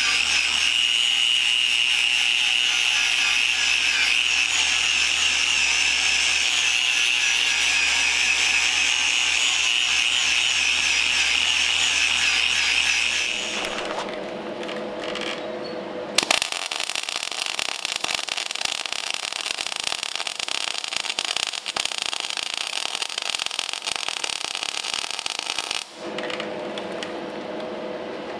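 Power tools working on steel, typical of grinding and cutting on a stripped hot-rod frame. A high, steady whine runs for about 13 seconds and then winds down. After it comes a lower hum, then a sharp click a few seconds later and about ten seconds of harsh rushing noise, with the lower hum returning near the end.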